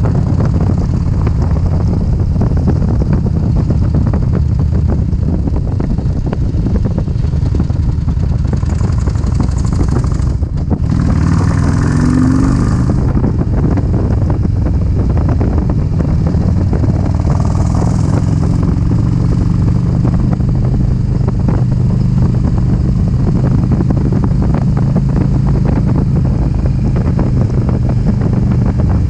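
Motorcycle engine running steadily at road speed, with wind and road rush on the microphone. About eleven seconds in, a brief louder rush of hiss comes with a short rise and fall in pitch, and a smaller rush follows near eighteen seconds.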